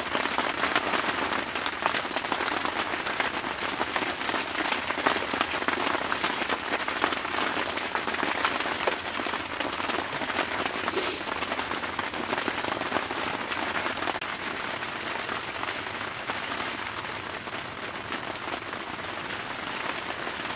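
Heavy rain pattering steadily on the fabric of an ice-fishing shelter, a dense, even hiss of countless small drops.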